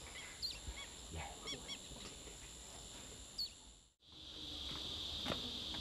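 Faint, short bird chirps over quiet background noise. About four seconds in the sound cuts out briefly, then gives way to a steady high chirring of insects with a few soft clicks.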